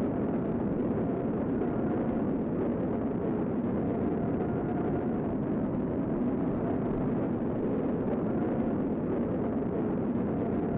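Tornado roar: a steady, dense wind rumble with a faint wavering whistle over it.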